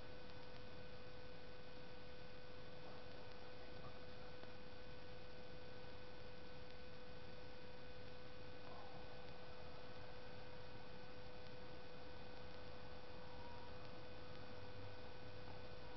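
Steady faint hiss with a constant thin electrical whine, unchanging throughout, with no distinct events.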